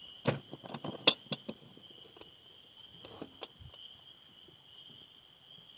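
Crickets chirring in a steady high tone, with a cluster of sharp clicks and knocks in the first second and a half and two more a little after three seconds in.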